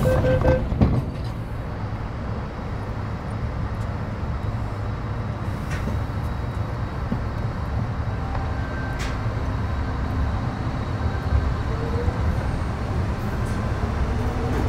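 Interior running noise of an MTR Metro Cammell M-Train (C212, CT-Stock) electric multiple unit between stations: the GEC GTO chopper's steady whine cuts off about half a second in with a knock, then the car rolls on with a steady rumble of wheels on rail. A faint whine returns near the end.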